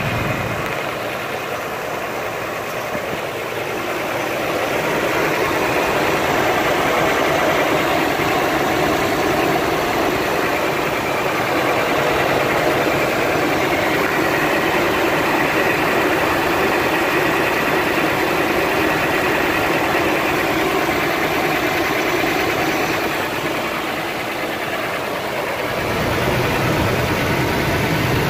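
Toyota Fortuner's V6 engine idling steadily, heard up close at the front drive belt and pulleys with a freshly fitted belt running and no squeal. The sound grows louder about four seconds in as the microphone nears the belt, dips a little past twenty seconds, and rises again near the end.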